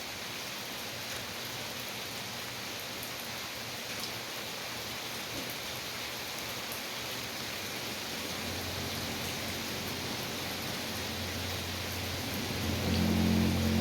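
Steady rain falling, an even hiss of many drops. A low steady hum comes in a little past halfway and grows louder near the end.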